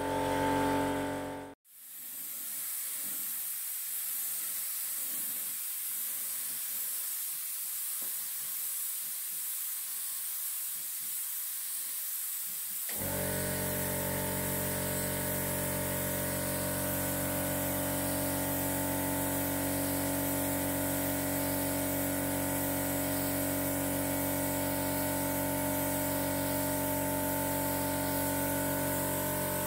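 Compressed-air paint spray gun hissing steadily as gloss paint is sprayed onto a door. The sound cuts out briefly near the start. From about halfway, a steady hum of several fixed tones runs under the hiss.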